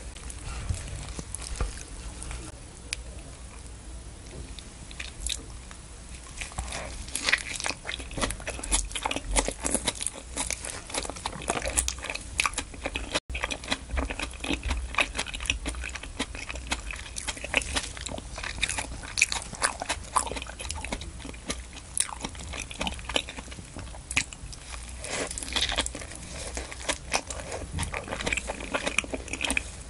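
Close-miked chewing of a mouthful of fresh leafy salad greens dressed with cream sauce: crisp, crunchy leaf snaps with wet mouth sounds. It is softer for the first few seconds, then dense crunching.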